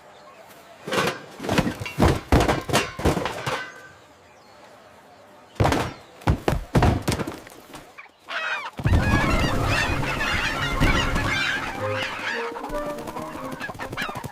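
A run of thuds and knocks, then from about nine seconds in a flock of geese honking and squawking together.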